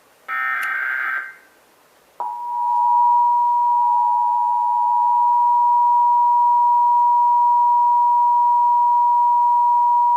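One Emergency Alert System SAME header data burst, a harsh digital screech lasting about a second. About two seconds in, the EAS two-tone attention signal (853 Hz and 960 Hz sounded together) starts and holds steady and loud for about eight seconds, announcing a Required Monthly Test.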